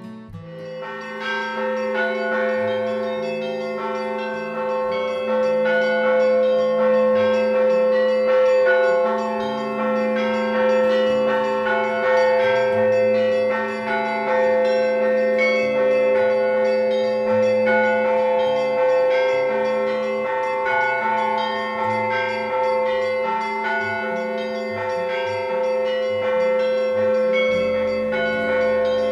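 Russian Orthodox church bells rung together in a rhythmic Easter peal: quick strikes of small bells at several pitches over the steady ring of larger bells.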